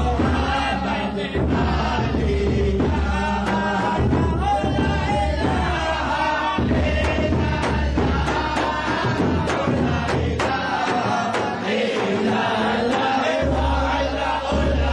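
A group of men chanting a devotional song together, led by a voice sung into a microphone, with repeated sharp strikes running through it.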